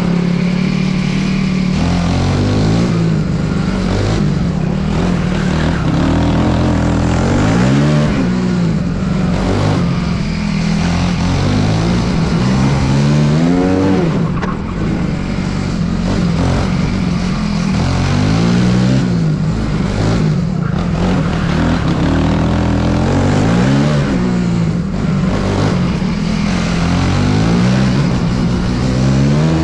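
Swissauto kart engine heard close up from on board, repeatedly revving up in rising sweeps and dropping back every two to three seconds as the kart accelerates out of each turn and slows for the next.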